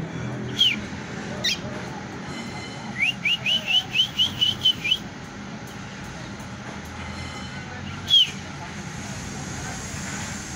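White-throated seedeater (golinha) singing. It gives two single whistled notes, then a quick run of about nine short, clipped whistles, and one more falling note near the end, over a steady low background noise.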